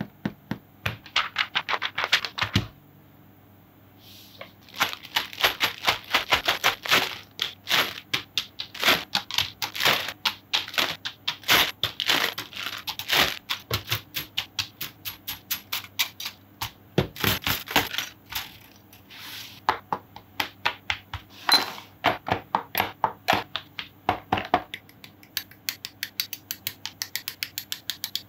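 Hard plastic clattering: Gunpla model-kit runners knocking and clicking against each other and the desk as they are handled and laid out, in a long run of quick sharp knocks. Near the end the knocks turn into a faster, more even run of light ticks, about four a second.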